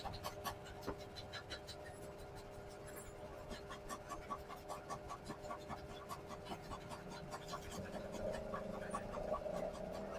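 Rapid, rhythmic hand scratching or scraping strokes, several a second, over a steady low hum, as in hand work on a small part.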